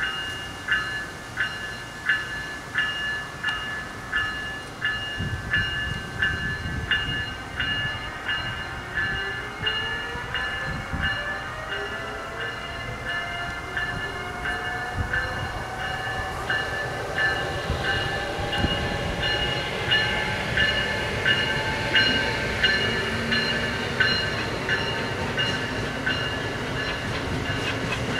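Amtrak ACS-64 electric locomotive and its train approaching on the line: a low rail rumble builds and an electric whine rises slowly in pitch over several seconds. Throughout, a bell dings about one and a half times a second.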